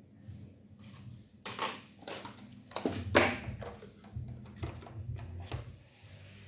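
Hands handling a smartphone's retail box and packaging: a few quick scrapes and rustles, loudest about three seconds in, then lighter clicks and taps, over a low steady hum.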